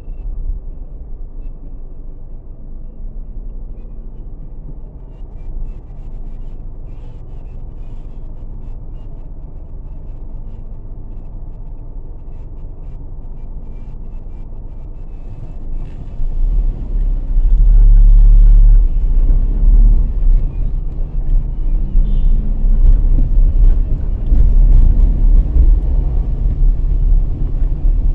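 Low rumble of a car stopped in traffic. About sixteen seconds in it becomes much louder as the car pulls away and drives off, adding road and wind noise.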